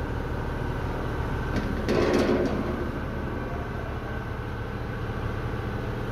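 Suzuki Swift engine idling steadily, with a short louder noise about two seconds in.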